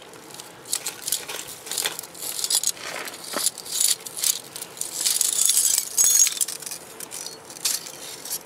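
Broken glass shards clinking and tinkling as a CO2 laser tube, cracked when its cooling water froze, is handled. It is a run of small, irregular clinks, busiest about five to six seconds in.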